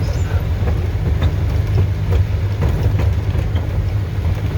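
Truck engine running hard under load on a rough dirt climb, with several knocks and clatters from the underside as it strikes the ground, which the driver calls a loud bang underneath.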